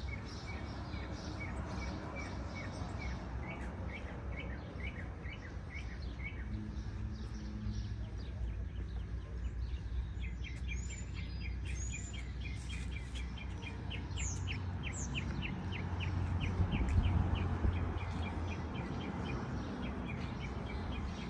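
Birds chirping outdoors in runs of short, quickly repeated calls, with a few higher sweeping calls between the runs, over a low steady rumble that swells about three quarters of the way through.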